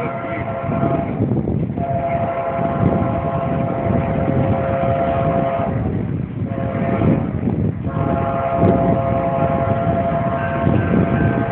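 Nathan K5LA five-chime locomotive air horn sounding a chord in long blasts broken by short gaps, over the low rumble of the passing train.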